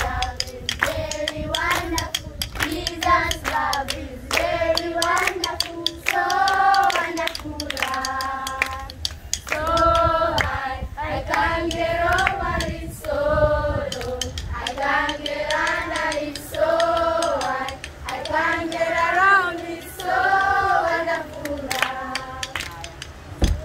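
A group of children and adults singing a praise song together in Swahili, with hand clapping throughout.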